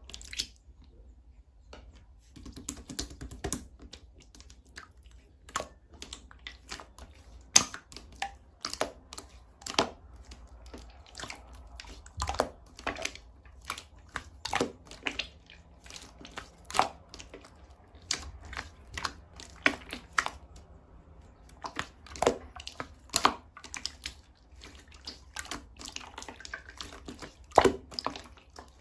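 Clear slime being worked by hand, giving irregular sharp clicks and pops of varied loudness, a few each second.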